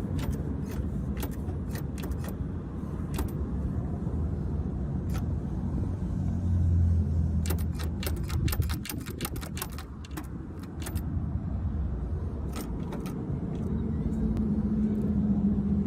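Car running with a steady low rumble that swells twice, with scattered sharp clicks and ticks over it, a dense run of them partway through.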